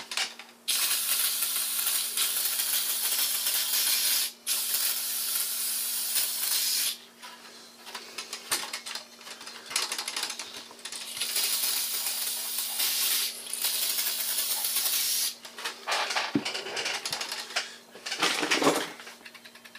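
Aerosol contact cleaner sprayed into a toaster's mechanism, hissing in long bursts of several seconds with pauses between, then shorter spurts near the end. A few light metallic clicks fall between the bursts.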